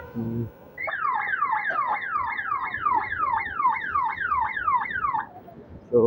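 Aftermarket electronic police siren fitted to an electric scooter, sounding a fast yelp: the same falling sweep repeated about three times a second. It starts a little under a second in and cuts off about five seconds in.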